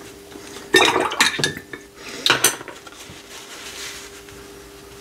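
Watercolour paintbrush clinking and knocking against hard painting gear as it is put down: two quick clusters of clinks with a brief ring, the first about a second in, the second near the middle.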